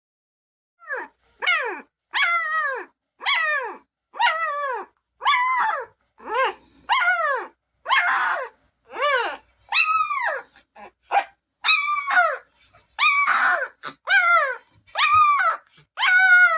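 Newborn Bernese Mountain Dog puppy crying: a steady run of high-pitched cries, each sliding down in pitch, about one a second.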